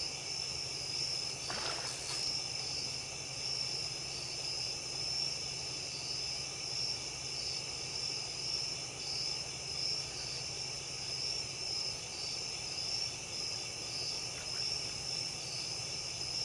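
Night chorus of crickets and other insects: a steady, high-pitched trilling that pulses in an even rhythm.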